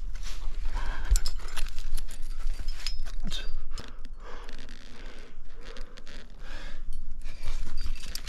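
A rock climber breathing hard in uneven swells as he works through a strenuous crux, with light clinks and scrapes of the climbing gear on his harness. Wind rumbles on the microphone underneath.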